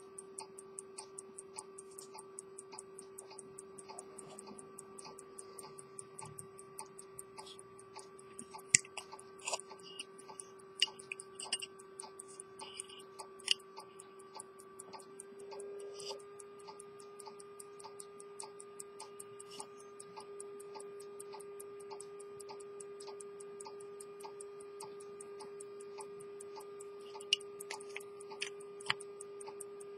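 Swiss lever-escapement pocket watch movement ticking steadily, about five ticks a second, over a steady hum. A few sharper clicks of the metal case being handled come in the middle and near the end.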